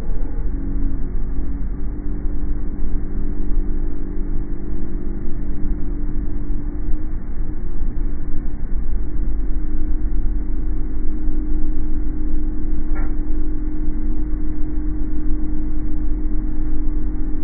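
Steady low road and engine rumble of a car on the move, overlaid with an unexplained steady hum of a few tones that shifts slightly a few times, and a single sharp click about 13 seconds in.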